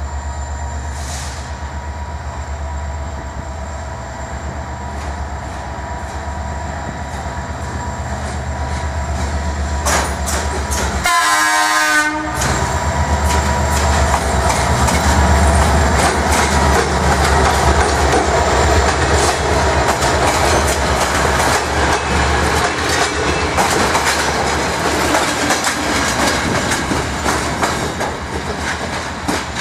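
Romanian CFR Class 65 (GM) diesel-electric locomotive running with a steady low engine drone, then a short horn blast about eleven seconds in as it departs. The engine grows louder as it pulls past, followed by wheels clicking over rail joints as the passenger coaches roll by.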